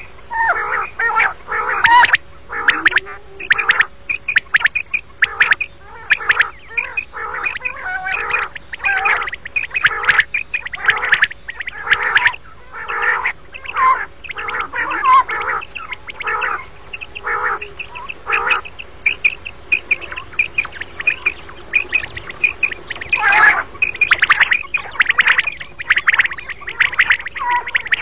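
Common quail calling over and over in quick, overlapping runs of short notes: a recorded quail call used as a lure for quail hunting.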